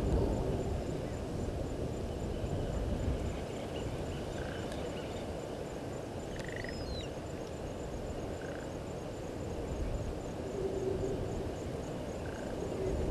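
Outdoor bush ambience at a waterhole: a steady low rushing noise, with a short call repeating about every four seconds and a brief descending whistle about halfway through. A faint, fast, high ticking runs underneath.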